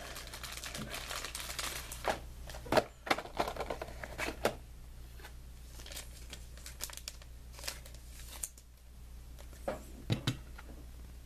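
Trading-card packaging being handled: plastic wrapper crinkling and rustling for the first couple of seconds, then a string of sharp clicks and taps, with a few more near the end.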